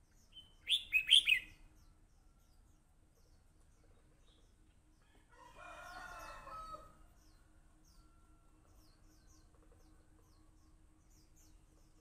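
Red-whiskered bulbul giving a short, loud burst of about four whistled notes about a second in. Near the middle comes a fainter, drawn-out call from another bird, and faint high chirps from small birds are scattered throughout.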